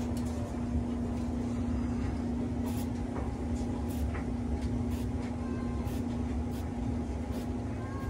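Febreze Air freshener can sprayed in a string of short bursts, each a brief hiss, over a steady low hum.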